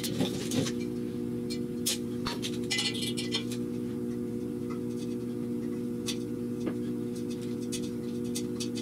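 A steady drone of several held tones, with a few light clicks and a brief rub in the first few seconds as gloved hands handle a square-tube steel frame.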